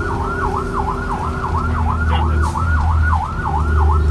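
Vehicle siren horn sounding a fast yelp, its pitch swinging up and down about three times a second, over a low rumble.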